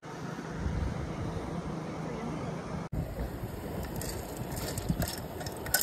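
Wind on the microphone and the flow of a shallow, rocky river. After a sudden cut about three seconds in, sweet corn kernels are poured from a small camping pot into a pan of chopped onions and tomatoes, landing with a scatter of light clicks near the end.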